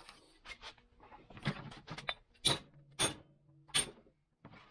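Rusty cast-iron parts of a Wilton bullet vise clinking and knocking against each other and the bench as they are handled during disassembly: a series of short, sharp metallic clicks, the loudest three in the second half.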